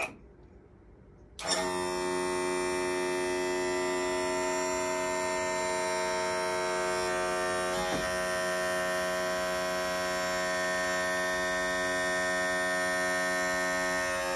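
Evinrude outboard's electric power trim/tilt pump motor starting about a second and a half in and running with a steady hum as it lowers the motor, driven through a homemade two-relay harness and three-position switch, which works.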